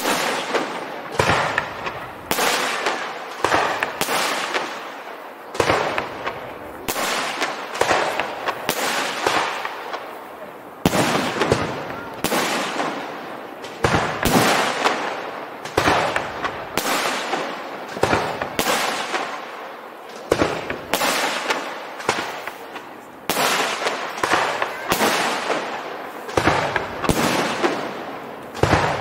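Aerial firework shells bursting in steady succession during a fireworks display, about one sharp bang a second, each trailing off in echo.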